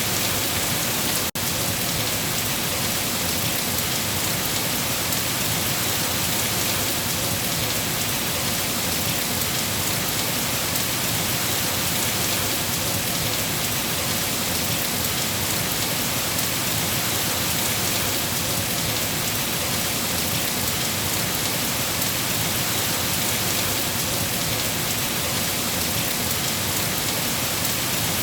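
Steady rain falling in a rainforest, an even, unbroken hiss, with a brief dropout about a second in.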